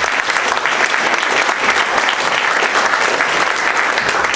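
Audience applauding steadily, welcoming a newly introduced speaker.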